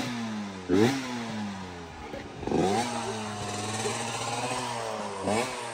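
Dirt bike engine idling and revved in quick throttle blips, four times, each rising sharply in pitch and dropping back to idle.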